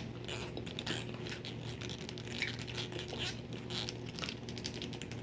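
Soft, irregular little clicks and scratches of a plastic comb being handled and turned over in the hands, over a faint steady hum.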